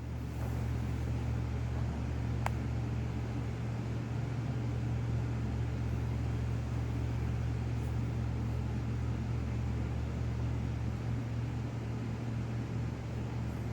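A steady low hum, with one faint click about two and a half seconds in.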